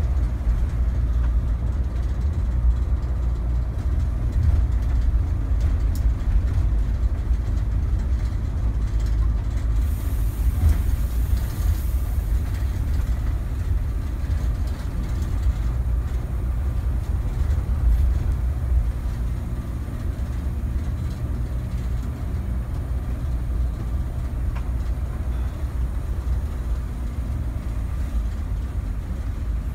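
Cabin noise of a Mercedes-Benz OH 1626 NG coach on the move, heard from inside: a steady low rumble of engine and road that eases a little about two-thirds of the way through.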